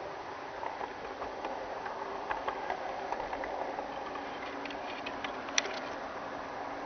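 G scale model train running on garden track, heard from on board: a steady mechanical whir of the drive with scattered clicks as the wheels pass over the track, the sharpest single click about five and a half seconds in.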